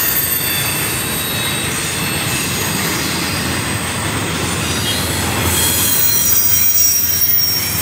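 CSX double-stack container train cars rolling past: a steady loud rumble and clatter of wheels on the rails, with thin high-pitched wheel squeal over it.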